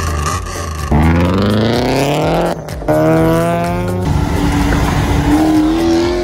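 Car engines accelerating hard, edited together: an engine note climbs steeply about a second in, breaks off, climbs again, then holds at a high, slowly rising pitch.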